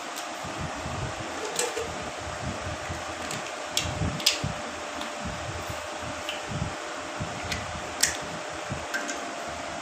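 Steady whirr of an electric fan with a faint constant hum. Over it come a handful of sharp clicks and taps, the loudest about four and eight seconds in, as hands handle the ignition lead and carburettor on a stopped Bullet 350 engine.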